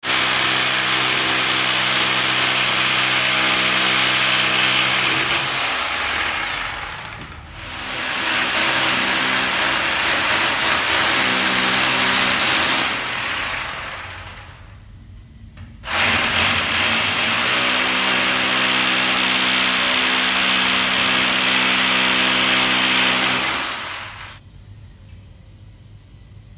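Corded electric drill with a side handle boring into a wall, running in three long bursts; each time the trigger is released the motor winds down with a falling whine. It falls quiet about two seconds before the end, leaving only faint ticks.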